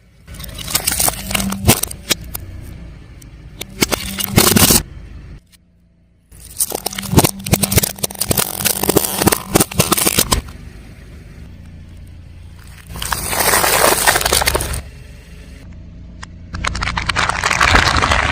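Car tyre rolling over crunchy objects and crushing them: several separate bouts of dense crackling and snapping over the low running of the car. There is a short drop to near silence about five and a half seconds in.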